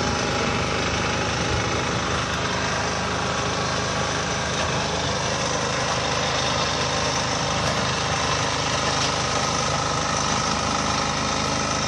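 Engine of road-works machinery running steadily at a constant speed.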